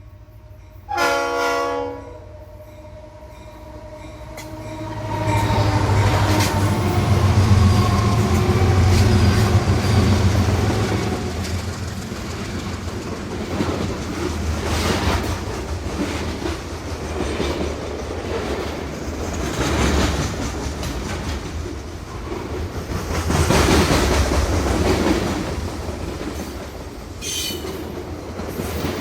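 Train sound effect: a short horn blast about a second in, then a train running past with the clickety-clack of wheels over rail joints. It grows loud, eases off, and swells again near the end.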